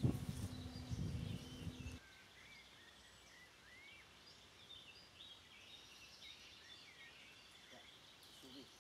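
Faint birdsong: short chirps and rising whistled notes. For the first two seconds a louder low rumbling noise covers it, then stops suddenly.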